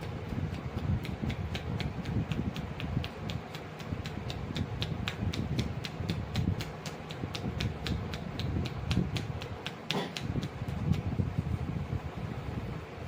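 Rhythmic percussive tapping of a head massage, hands striking in quick succession at about five light claps a second, over a steady low rumbling noise.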